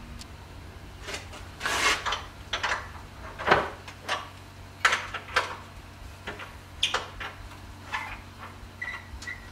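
A cast-iron wood stove being handled: irregular metal scrapes, clunks and clicks as its fittings are worked, the loudest a scrape about two seconds in.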